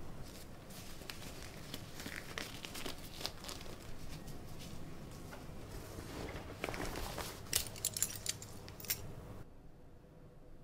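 Thin disposable plastic glove crinkling and rustling as it is pulled onto a hand, with a few sharp clicks near the end; the sound cuts off suddenly shortly before the end.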